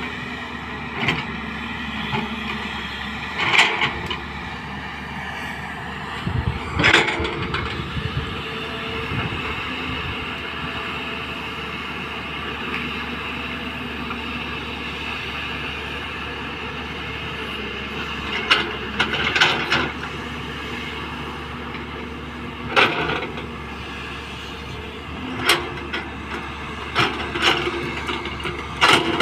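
Excavator running with a steady engine drone, broken by loud metallic clanks and knocks now and then: a big one about seven seconds in, and a cluster of them in the last third.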